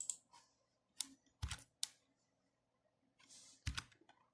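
A few faint, scattered clicks of a computer mouse and keyboard, about five in all, with quiet between them.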